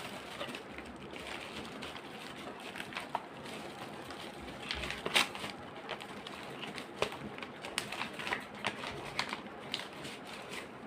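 Paper packaging being handled and opened: rustling and crinkling with scattered small clicks and taps, the sharpest tap about five seconds in.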